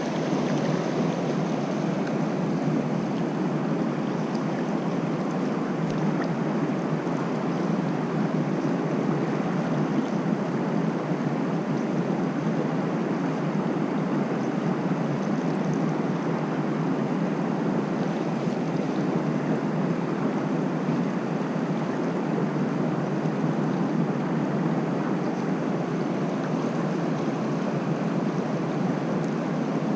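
Mountain stream water rushing, a steady, even noise with no breaks.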